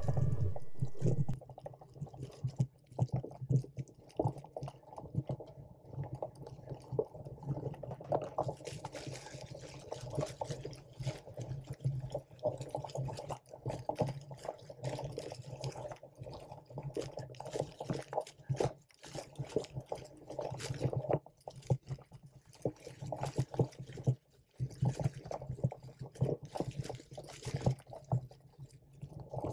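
Mountain bike riding over rough grass, heard from a handlebar-mounted camera: a dull, irregular rattling and rumbling that keeps going, with no engine or voice.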